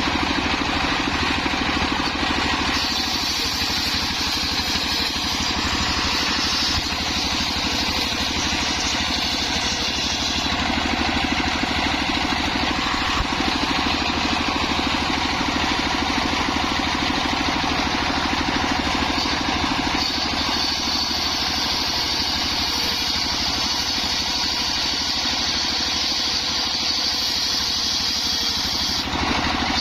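Engine-driven homemade circular saw running steadily, with a higher hiss rising over the engine from about 3 to 10 seconds in and again from about 20 seconds to near the end, as the blade cuts through coconut-palm wood.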